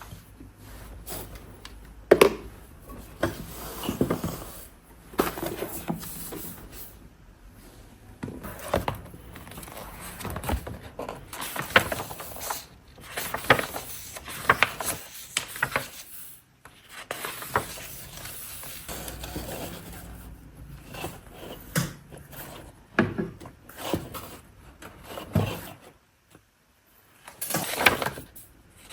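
Small objects being handled close to the microphone: irregular rubbing and scraping with light knocks and clicks, pausing briefly near the end.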